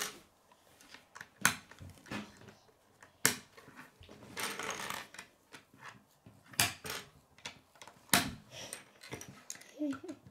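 K'nex plastic rods and connectors snapping together and knocking on a wooden tabletop: a few sharp clicks spaced a second or more apart, with a rustle of plastic pieces being handled about four to five seconds in.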